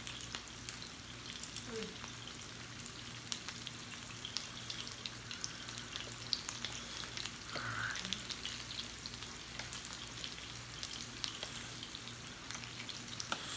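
Meat sizzling on a tabletop Korean barbecue grill: a steady hiss dotted with many small crackles.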